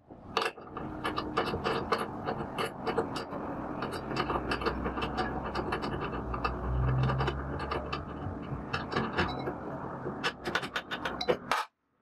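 Ratchet wrench clicking rapidly as the refrigerator compressor's mounting bolts are undone, with a low rumble for a few seconds in the middle.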